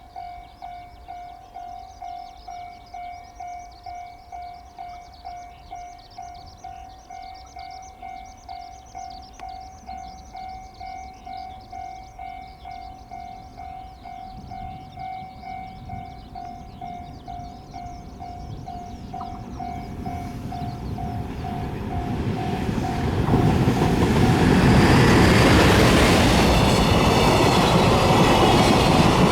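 Railway level crossing warning bell ringing with an even pulse, about two strikes a second. From about halfway the noise of an approaching train rises, and in the last few seconds the train passes over the crossing loudly, drowning out the bell.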